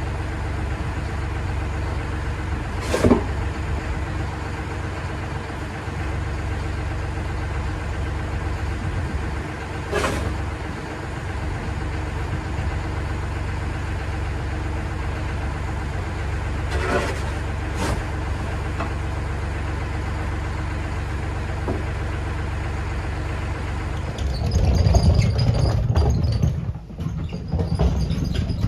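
An engine running steadily, with a few sharp knocks along the way and louder, rougher running for the last few seconds.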